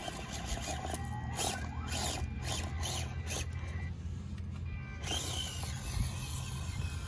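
Electric motor and gear drive of an FMS Atlas 6x6 RC rock crawler whining unevenly as it climbs over rocks, with a run of clicks and knocks in the middle.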